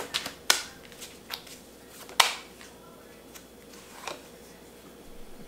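A deck of oracle cards being shuffled and handled by hand: sharp flicks and taps, quick at first, then thinning to a few scattered taps, the loudest just over two seconds in.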